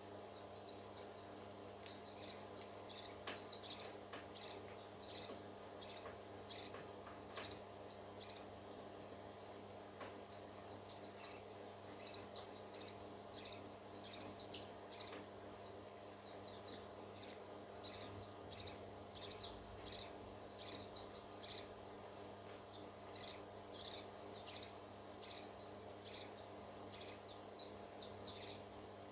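Parrots chirping in many short, high calls that come in quick runs throughout, over a steady low hum.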